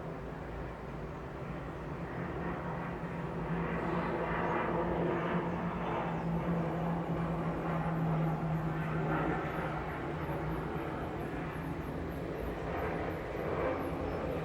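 City traffic ambience: a passing engine's low hum and rumble swells over a few seconds, then eases off. A fast, high repeated chirping sets in about halfway through.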